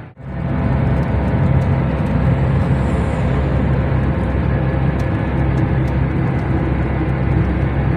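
Steady road and engine noise heard from inside a car moving at highway speed: a low drone under a constant tyre rush, after a momentary dropout at the very start.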